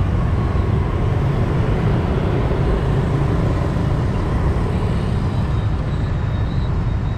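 City street traffic, mostly motorbikes and scooters with some cars passing, as a steady, even noise.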